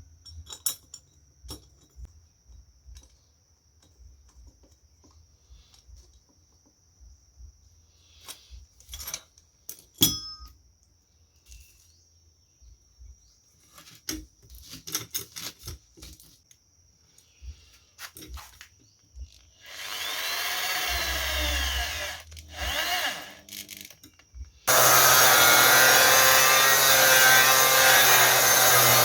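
Scattered clinks and knocks of metal parts being handled, then two brief runs of an angle grinder's motor, spinning up and winding down. About three seconds before the end the angle grinder is switched on and runs steadily and loudly.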